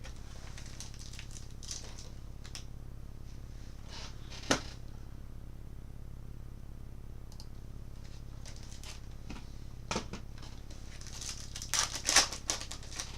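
Trading card pack wrapper crinkling and tearing open and cards clicking as they are handled, in scattered short sounds: a sharp snap about four and a half seconds in and a quick flurry of crinkling near the end.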